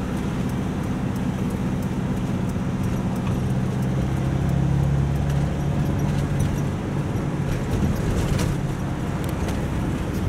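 Vehicle engine hum and road noise heard from inside the cab while driving in town traffic, growing a little louder about four seconds in.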